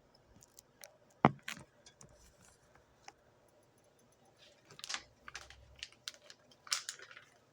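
Irregular light clicks and clinks, with one sharp knock about a second in and small clusters of clicks near the middle and the end.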